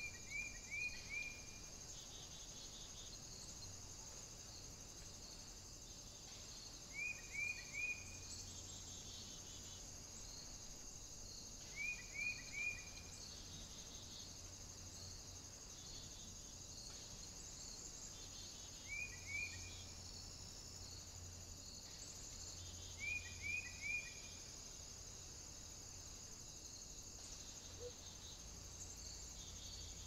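Faint, steady high-pitched insect chirring, with a bird calling short phrases of three or four quick falling notes about every five to seven seconds.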